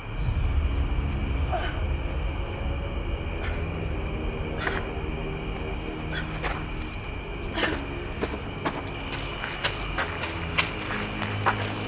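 Steady chirring of crickets, with a series of sharp taps that are sparse at first and come more often toward the end.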